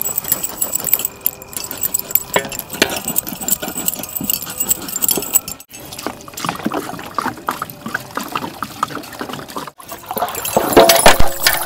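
Metal clinks and knocks against a large aluminium cooking pot as a whole goat carcass is handled in it with a cleaver. Then water is poured into the pot and the meat is sloshed and rubbed by hand in the water, loudest near the end. The sound breaks off abruptly twice.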